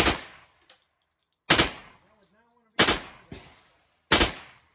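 AR-style carbine fired in single semi-automatic shots: four loud shots about a second and a half apart, each dying away in a short echo, with a fainter bang just after the third.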